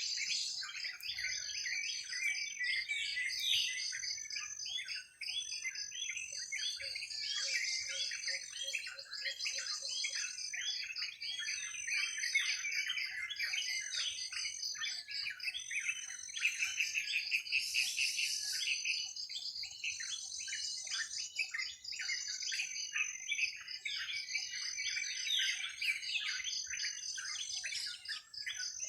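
Many birds chirping and calling over one another in a dense, continuous chorus, with a steady pulsing trill, typical of crickets or other insects, running high above it.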